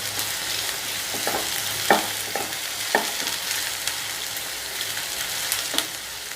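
Sliced onions sizzling in hot oil in a kadai, with a steady frying hiss. A stirring utensil knocks and scrapes against the pan several times, loudest about two and three seconds in.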